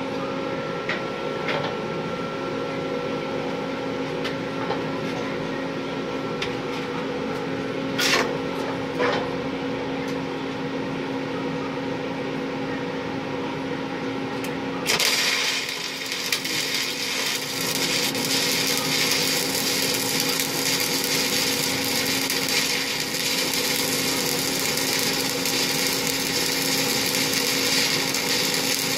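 A steady ventilation hum, then about halfway through a stick-welding arc strikes suddenly and burns with an even crackle and hiss: a 3/32-inch E7018 low-hydrogen electrode running overhead.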